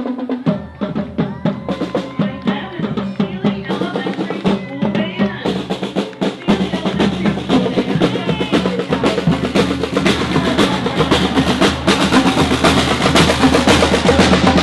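Music led by drums: rapid snare-drum rolls over bass drum, getting louder and fuller about halfway through.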